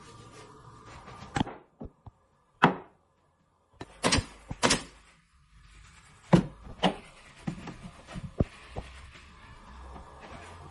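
A string of sharp, irregularly spaced knocks and clunks over a faint steady hum, with the sound cutting out completely for about two seconds near the start.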